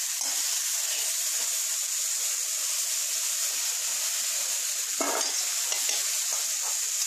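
Mixed vegetables (potato, brinjal, raw banana, beans and drumsticks) sizzling in hot oil in a metal kadai, with a steel spatula stirring and scooping through them. A steady frying hiss.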